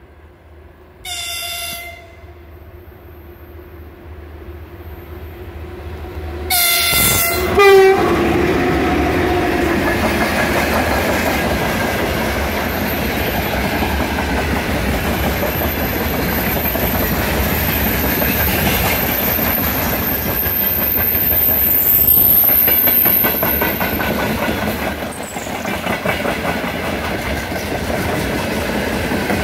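VL10U electric locomotive sounding its horn as it approaches: a short blast about a second in, then a longer, louder blast around seven seconds. The freight train then passes close by, its wagons rolling with a steady rumble and rhythmic clickety-clack of the wheels.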